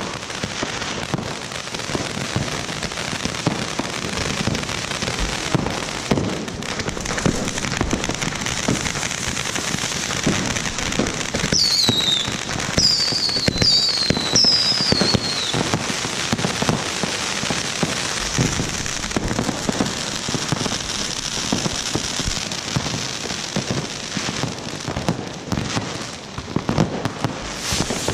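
Fireworks going off: the steady hissing spray of ground fountains with many small crackles and pops, and around the middle a few quick whistles that fall in pitch.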